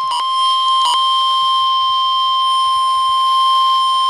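Emergency alert attention tone: one steady, loud tone at about 1 kHz, the single-tone weather-radio warning alarm signalling a severe thunderstorm warning. It is broken by a couple of short bursts in the first second and then held without a break.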